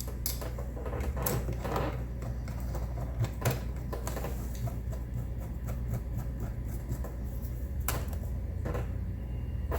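Scattered small clicks and taps of a hand tool on the battery terminal bolts as the leads are screwed back on, over a steady low hum.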